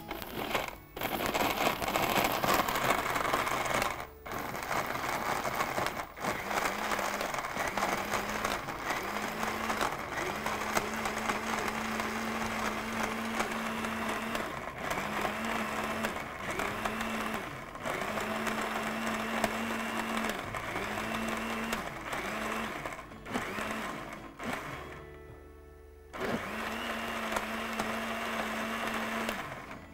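Electric jug blender running, whizzing dates with milk, sugar and cream into a date milkshake. It cuts out briefly a few times and pauses for about a second near the end before running again.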